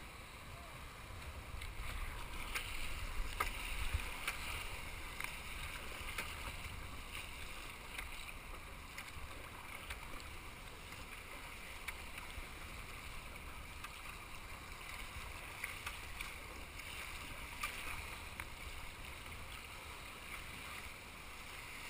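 Choppy sea water sloshing around a kayak and surf washing over rocks, a steady rushing hiss with a low rumble underneath and occasional sharp splashes.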